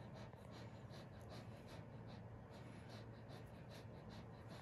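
Faint scratchy rubbing of a cotton wipe against the inside of a Pembroke Welsh Corgi's ear during an ear cleaning, in quick strokes about three or four a second.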